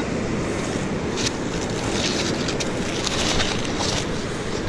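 Steady rush of wind and surf, with several short scraping crunches of digging in sand.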